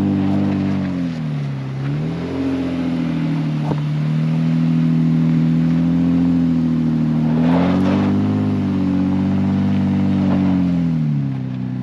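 Vehicle engine working hard on a steep off-road climb, held at high revs and repeatedly eased off and revved back up. Its pitch dips about two seconds in, again about two-thirds of the way through, and near the end. A short burst of noise comes just before the second dip.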